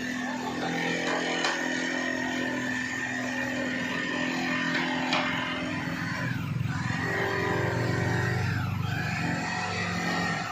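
Woodworking machine running steadily with a high motor whine that drops sharply in pitch and recovers twice in the second half, as wood is fed into it.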